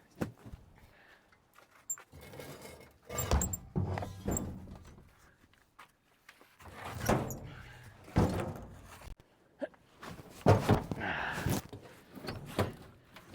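A series of heavy thunks and knocks, in several clusters, as an alloy wheel rim is handled and shifted about.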